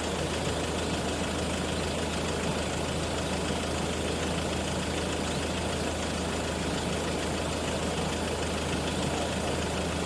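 Land Rover's engine idling steadily, heard close up from the front of the vehicle.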